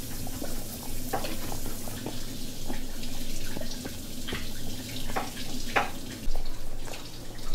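Dog chewing and gnawing a bully stick close up: wet chewing with irregular clicks, over a steady low hum that stops about six seconds in.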